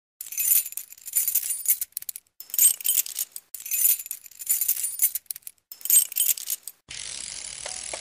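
Bright metallic jingling and rattling in repeated bursts, a title-intro sound effect. About seven seconds in it gives way to a steady hiss with a few faint ticks.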